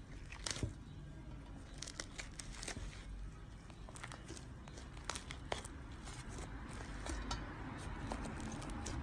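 Slime being worked by hand, giving irregular sticky clicks, pops and crackles.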